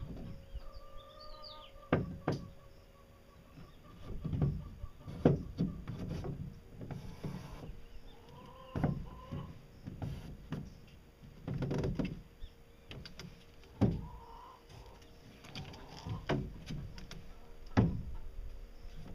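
Irregular knocks and bumps, about a dozen, as a fiberglass boat arm is handled and pressed against the hull to test its fit. A bird calls faintly in the background.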